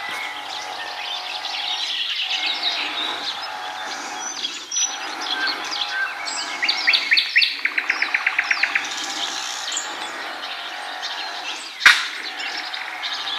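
Several songbirds singing at once in a dense spring chorus, with a rapid even trill about halfway through. A single sharp click near the end.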